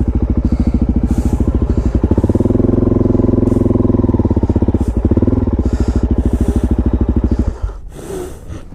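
Supermoto motorcycle engine running hard under throttle, its exhaust pulses fast and even, while the bike is ridden through sand. About seven and a half seconds in the throttle drops off and the engine falls much quieter.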